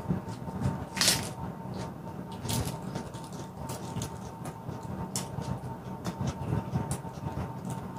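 Close-up chewing of a mouthful of raw pak choi leaf, with wet crunches and crisp snaps. The loudest snap comes about a second in.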